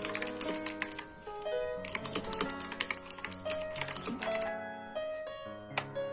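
Fast typing on a mechanical keyboard: rapid runs of key clicks in two bursts, stopping about four and a half seconds in, over background music with a melody.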